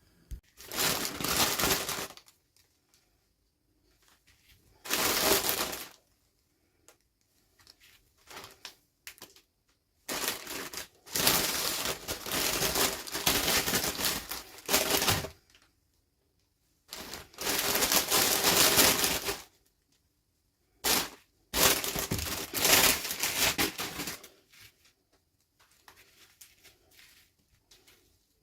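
Plastic packaging crinkling and tearing as it is handled and opened, in several bursts of a second to five seconds each, separated by short quiet gaps.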